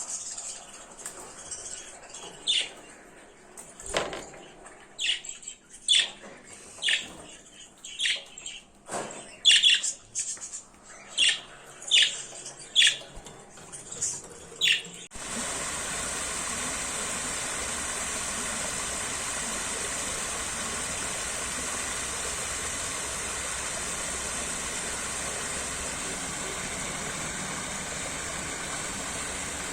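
A bird calls again and again with short, loud, falling chirps, about one a second. About halfway through it cuts off abruptly to the steady rush of flowing water, like a stream or waterfall.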